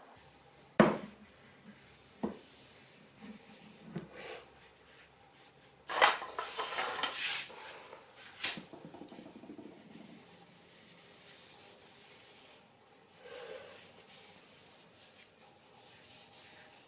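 A few sharp wooden knocks from handling the wooden sword, the loudest about a second in, then a cloth rubbing along the purpleheart blade, briefly louder and scratchier about six seconds in and then a long soft wiping.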